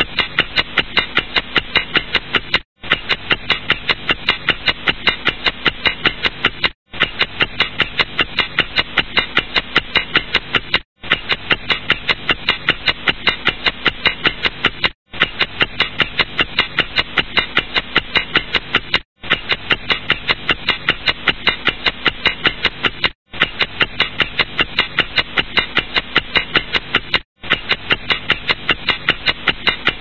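Clock ticking fast and evenly, several ticks a second, with a very brief break about every four seconds where the recording loops.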